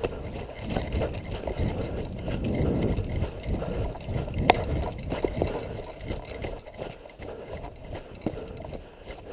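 Footsteps crunching through snow over a low rumble on a helmet-mounted camera's microphone, with a single sharp click about four and a half seconds in.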